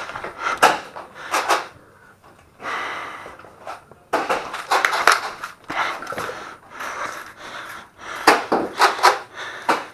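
A person breathing hard close to a head-mounted microphone, in repeated breaths about a second long, with rustling and a few short knocks near the end.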